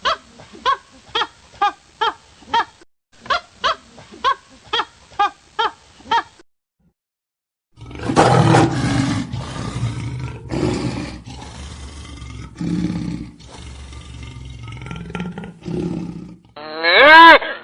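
A string of animal calls. First come short honking calls, about two a second, for some six seconds. After a brief gap there are about eight seconds of roaring and growling, and near the end one loud call that rises and falls in pitch.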